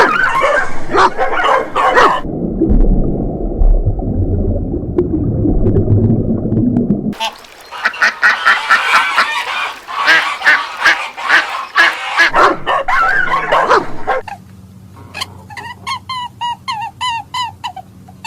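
A run of animal sounds in separate short clips: a low rumbling stretch, then a dense mix of calls, and near the end a steady string of short pitched calls, about three a second.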